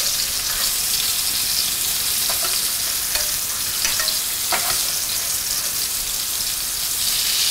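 Flour-dredged lamb meatballs sizzling steadily in hot olive oil in a frying pan, with a few light clicks as a spoon turns them to brown on all sides.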